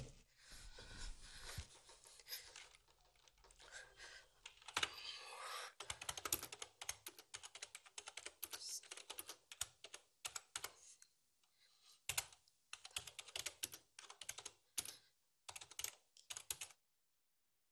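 A sharp thump at the start, then fast typing on a computer keyboard: runs of rapid key clicks broken by short pauses, stopping about a second before the end.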